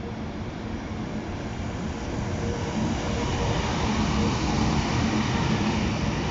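E652 electric locomotive running light past at close range. It gives a steady motor hum over the rumble of its wheels on the rails, growing louder over the first few seconds as it draws near.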